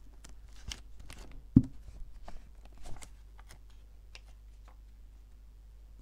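Glue stick being rubbed on paper while a sticker sheet is handled on a notebook page: a run of light clicks and rustles, with one sharper knock about one and a half seconds in, thinning out after about three seconds.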